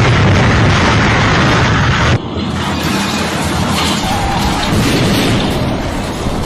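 Loud roar of hurricane-force wind buffeting the microphone. The sound changes abruptly about two seconds in, from a deep low rumble to a brighter, hissing roar.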